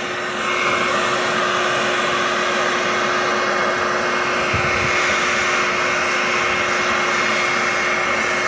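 Ryobi heat gun blowing hot air steadily: a constant rush with a steady motor whine, heating the overlap of a self-adhesive bitumen membrane to weld it. It gets slightly louder about half a second in.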